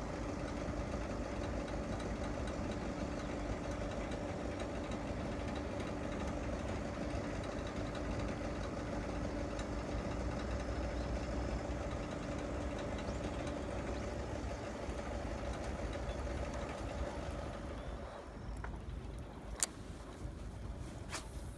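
A machine running with a steady hum at a constant pitch, like an idling engine, which dies away about 18 seconds in. Two sharp clicks follow near the end.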